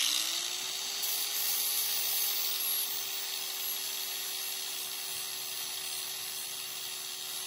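Electric angle grinder spinning up, then running steadily as it grinds metal off a steering spindle: one steady whine under a harsh grinding hiss. The spindle is being clearanced where it hit when test-fitted.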